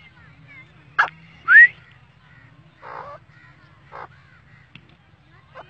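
Grey francolin (teetar) calling: a few short, sharp notes spaced about a second apart, with a loud rising whistled note about a second and a half in and rougher notes near the middle.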